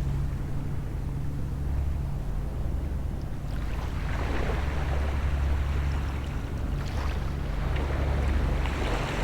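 Small, gentle sea waves washing onto the shore, coming in several soft swells that rise and fade, over a steady low hum.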